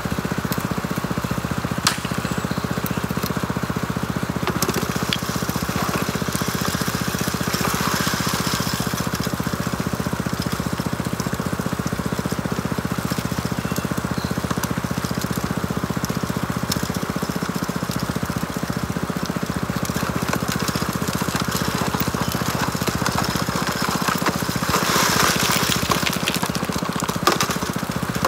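Small gasoline engine of a high banker's water pump running steadily, with a hiss of rushing water, a few sharp clicks, and a louder burst of noise about 25 seconds in.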